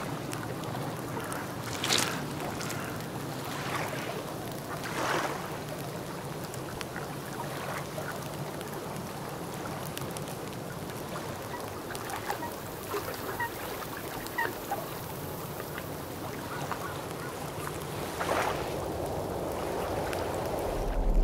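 Steady watery ambience of rain and wet ground, with brief louder swells about two, five and eighteen seconds in and a few faint short pips near the middle.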